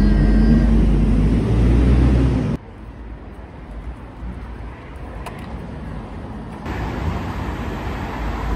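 City street traffic noise. A loud, low vehicle engine rumble runs for the first couple of seconds and cuts off suddenly to a quieter hush. Road traffic at an intersection comes back a little past two-thirds of the way in.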